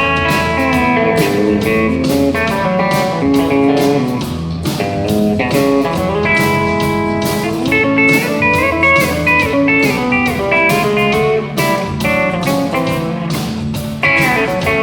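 Scheltema Sherwood Classic pedal steel guitar playing sustained chords and melody lines with gliding pitch bends, over a steady beat.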